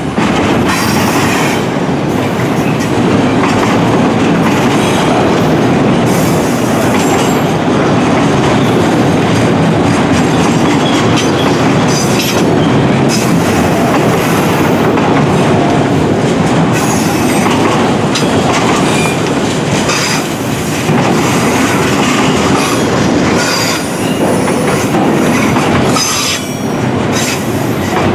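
Freight train of enclosed autorack cars rolling past close by: a steady rumble of steel wheels on rail, broken by occasional clicks and short high-pitched wheel squeals.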